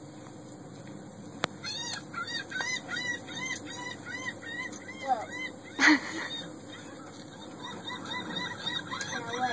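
Honking bird calls: runs of short, arched, repeated notes, about three a second, with one louder sharp burst about six seconds in.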